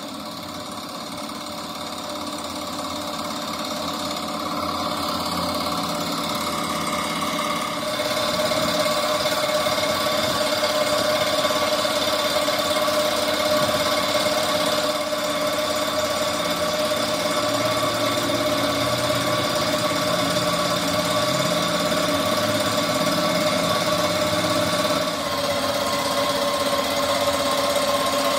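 Machinery running steadily, growing louder over the first eight seconds or so, with a brief drop in level near the end.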